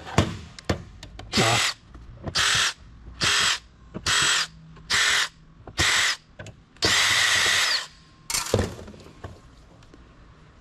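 Cordless drill-driver run in six short bursts about a second apart, then one longer run of almost a second, backing screws out of an old CD-ROM drive casing; a sharp click follows.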